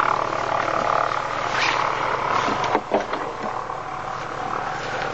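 Light propeller aircraft engine running steadily with a low rumble, with a few short knocks about two and three seconds in.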